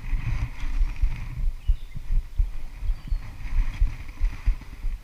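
Irregular low thumping and rumbling on the camera's own microphone, several knocks a second, the kind of noise a body-worn action camera picks up from wind buffeting and movement.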